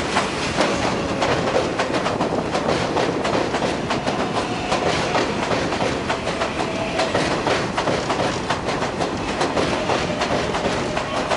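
R142A subway train rolling through the station, its wheels clacking over rail joints in a continuous run of clicks, with a faint steady whine from the propulsion.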